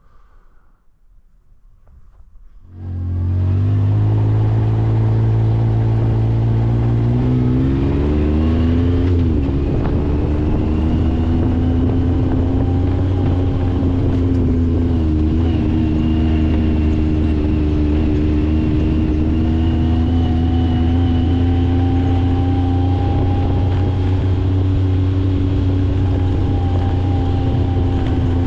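Yamaha YXZ1000R side-by-side's three-cylinder engine running under way, loud from inside the cab; it comes in suddenly about three seconds in, its pitch climbing for several seconds, dipping briefly, then holding steady.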